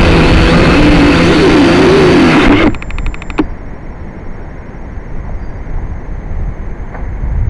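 Drone motors and propellers running loud, with a whine that wavers up and down in pitch. About two and a half seconds in, the sound cuts off abruptly, followed by a brief run of rapid clicks and then a low rumble with a faint steady high whine.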